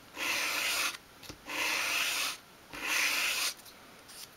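Edge of a small thin wooden piece swept across a sheet of sandpaper lying flat: three separate sanding strokes, each under a second, all in one direction.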